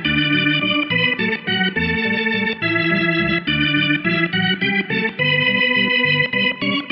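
Organ music playing a quick melody of short notes over a moving bass line.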